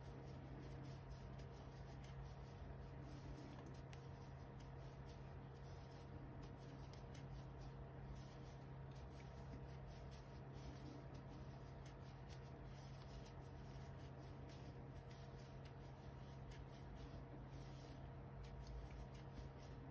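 Faint, irregular soft rubbing and scratching of cotton yarn being drawn through stitches with a metal crochet hook, over a steady low hum.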